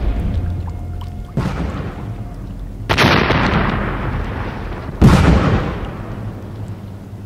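A series of explosive booms: three sharp blasts about a second and a half to two seconds apart, the last the loudest, each dying away in a long rumbling tail.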